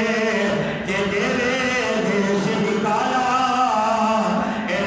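A man singing unaccompanied, holding long notes that waver and slide in pitch, with a short break about a second in.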